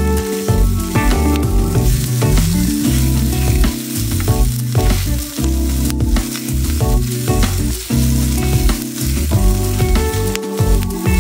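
Corned beef and onions sizzling in a nonstick frying pan, stirred and scraped about with a bamboo spatula. Background music with low, stepped bass notes plays underneath.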